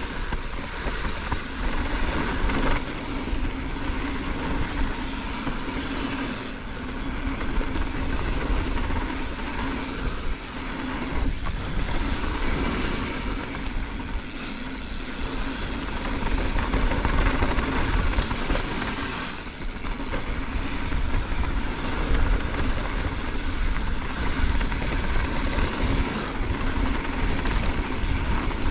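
Mountain bike descending a dirt singletrack: wind rushing over the camera microphone, with the knobby tyres rolling and rattling over the dirt.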